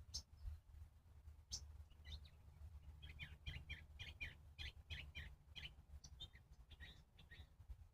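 A bird chirping faintly: a few sharp high chirps, then a quick run of short repeated notes, about two or three a second, over a low rumble.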